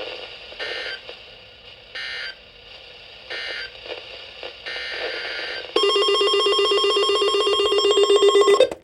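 Emergency Alert System tones between two warning messages: four short bursts of data tones about a second and a half apart, the last one longer, then a loud buzzing two-tone attention signal for about three seconds that cuts off suddenly.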